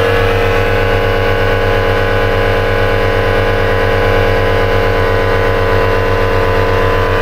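A motor running steadily, a constant hum over a fast, even pulse.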